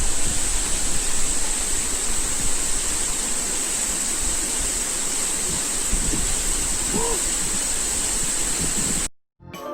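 Rushing water of a mountain valley stream, a steady even rush that cuts off suddenly about nine seconds in. Keyboard music starts just at the end.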